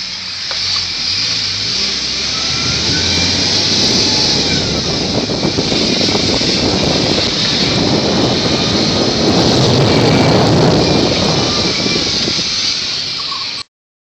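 A vehicle driving along a rough road: engine and tyre noise with a strong steady hiss, the rumble swelling toward the middle. The sound cuts off abruptly near the end.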